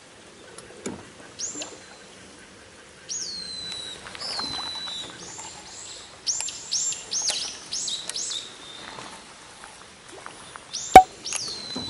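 A songbird calling: repeated high whistled notes, each jumping up sharply and then sliding down into a short held tail, coming in a quick run in the middle. A single sharp knock near the end is the loudest sound.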